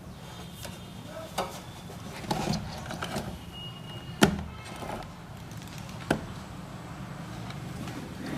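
Scattered clicks and knocks of a test lead and tools being handled on an amplifier, the sharpest a little past four seconds in, over a steady low hum.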